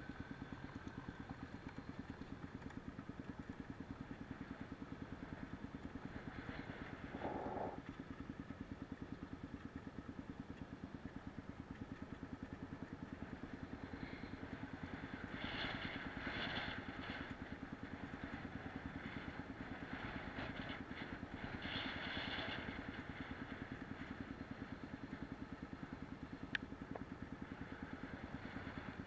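Off-road motorcycle engine running at an even, steady pace while riding a gravel dirt track, heard from on the bike. Patches of rattling and road noise come up a little past halfway, and there is a single sharp click near the end.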